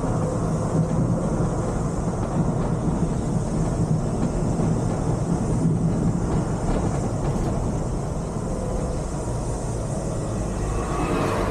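Volvo B11R coach under way, heard from the driver's cab: a steady low rumble from its rear-mounted six-cylinder diesel engine, mixed with tyre and road noise.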